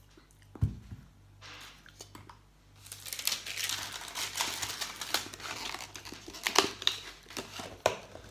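Thin clear plastic tiramisu tray crinkling and crackling with sharp clicks as it is handled and its lid pressed back on, after a dull thump early on.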